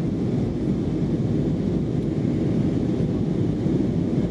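Steady low rumble of an Airbus A319 in flight, heard inside the passenger cabin: engine and airflow noise, even throughout with no distinct events.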